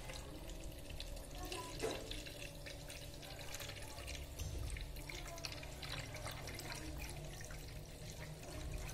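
A thin stream of water from a plastic tube trickles and splashes into a plastic jar as it fills, with scattered drips.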